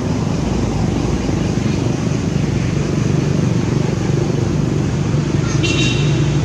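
Steady low rumble of a vehicle engine running, with a short high-pitched squeal about five and a half seconds in.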